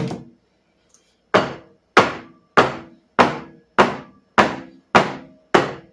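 A series of sharp, even knocks on a hard surface, one at the start and then a steady run of about eight, roughly one every 0.6 s, each ringing briefly.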